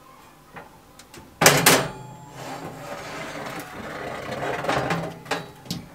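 Metal wire oven rack being handled. A sharp metal clatter comes about a second and a half in, then a longer rattling scrape, and a couple of clicks near the end.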